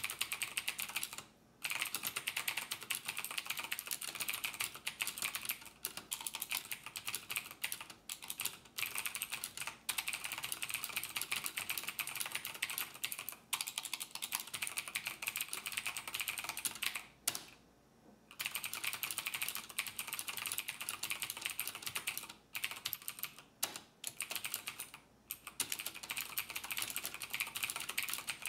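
Rapid, continuous typing on a computer keyboard, stopping briefly about a second and a half in and again for under a second around eighteen seconds in.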